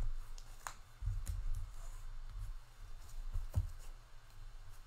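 Trading cards being handled and sorted by hand: a few light clicks and soft rubs, with occasional low knocks against the table.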